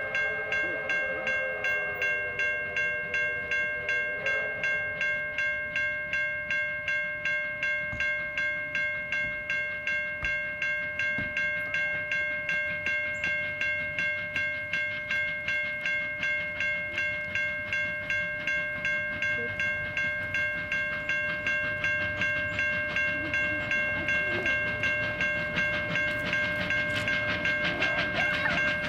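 Victorian Railways R class 4-6-4 steam locomotive working hard towards the listener, its exhaust beating evenly at about three beats a second. A steady high ringing tone sits over the beats, and the sound grows a little louder near the end as it draws closer.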